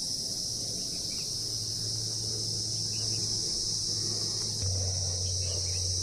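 Insects chirring in one continuous high-pitched drone, with a few faint bird chirps over it and a steady low hum underneath.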